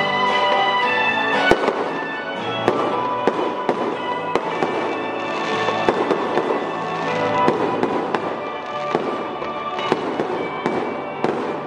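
Fireworks going off, with a sharp bang about a second and a half in followed by dense crackling bursts, over music playing.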